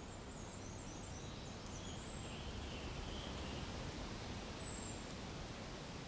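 Outdoor spring ambience: a steady low rush of soft wind, with a small bird's thin, very high calls over it, a quick twitter at the start, then single short falling notes about two seconds in and again about four and a half seconds in.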